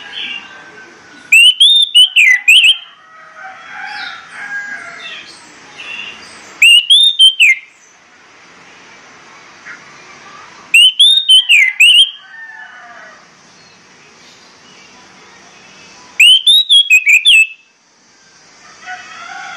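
Orange-headed thrush singing: four loud bursts of quick, high whistled notes, each about a second long and several seconds apart, with fainter bird twittering in between.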